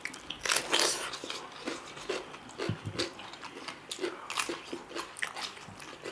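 Raw white radish (mooli) slices being bitten and chewed, a run of crisp crunches, loudest about half a second in.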